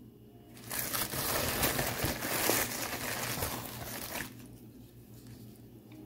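Plastic product packaging crinkling as it is handled. It starts just under a second in and stops after about three and a half seconds.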